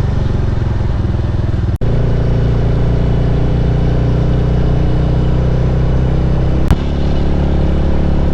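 Suzuki DR650's single-cylinder engine running at a steady pace on the move, with the note cut off very briefly twice, about two seconds in and again near seven seconds.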